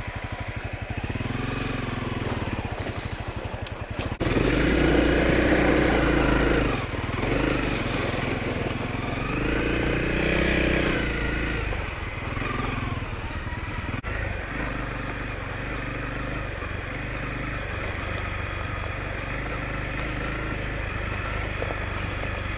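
Honda CRF250L's single-cylinder four-stroke engine running under way. It revs up and eases off twice, about four and ten seconds in, then runs steadily at a lower level.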